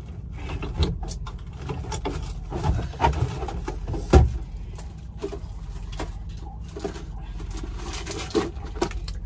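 Small objects being handled and moved about: scattered clicks, rustles and knocks, with one louder thump about four seconds in, over a steady low hum.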